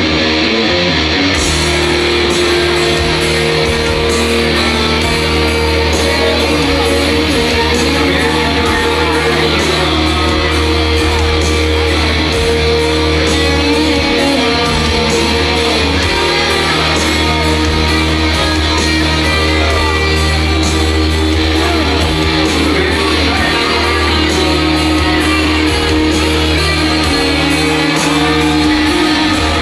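Live rock band playing loud, with electric guitar and a singer over a heavy, steady low end, echoing in a large club hall.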